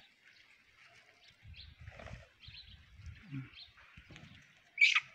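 Faint bird chirps over low rumbling, with one louder, sharp chirp near the end.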